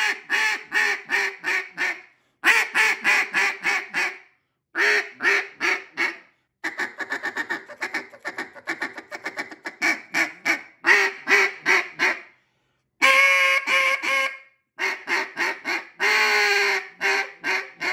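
Double-reed injection-molded acrylic duck call blown in mallard-style quacking, in several runs of quacks that fade off toward the end of each run, separated by brief pauses. In the middle comes a long stretch of rapid, quick-fire chattering notes.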